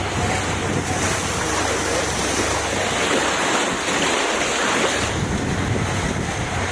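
Sea surf washing in a steady rush, with wind buffeting the microphone.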